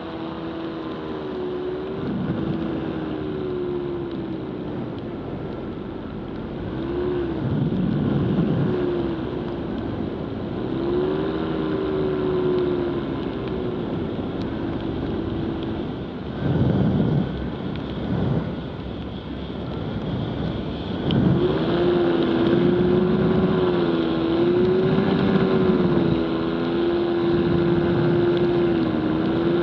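Nirvana paramotor's two-stroke engine running in flight, its pitch wavering up and down with the throttle, with several gusts of wind noise hitting the microphone.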